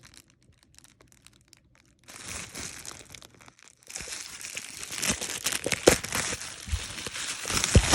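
Packaging crinkling and rustling as an item is unwrapped by hand, starting about two seconds in and getting busier and louder from about four seconds in.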